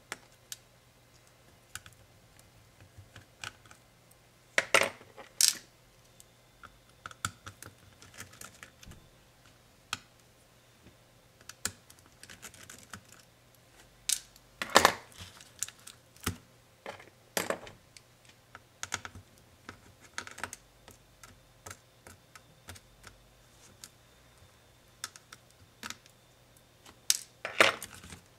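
Irregular small clicks, taps and light clatters of fingers and a metal tool on the plastic and metal parts of a Dell XPS 13 9365 laptop being taken apart at its battery. The loudest clatters come about five seconds in, about fifteen seconds in and near the end, as the battery is lifted out. A faint steady low hum runs underneath.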